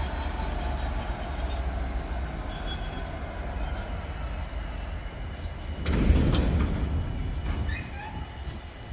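Class 66 diesel freight locomotive's two-stroke V12 engine working hard under full power as it pulls a freight train away, a steady low rumble with a louder surge about six seconds in.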